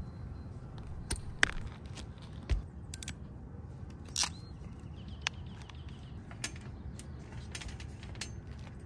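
Scattered sharp clicks and snaps of hand tools: wire cutters and an MC4 crimping tool working on a solar-panel wire and connector pin, a few clicks every second or two, over a steady low background noise.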